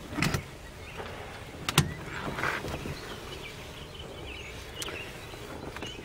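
Seat belt being buckled: rustling webbing and a sharp latching click as the latch plate snaps into the buckle, about two seconds in, with a few lighter clicks around it.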